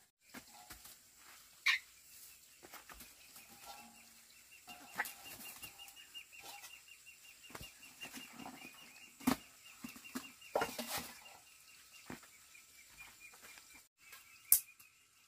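A chicken flapping its wings in several short, sharp bursts, over a steady high trill.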